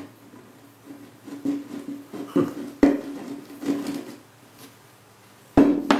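Small crank-handle vise being worked by hand: irregular metallic clicks and scrapes as the Acme screw turns and the movable jaw slides out, with a sharp knock near the end.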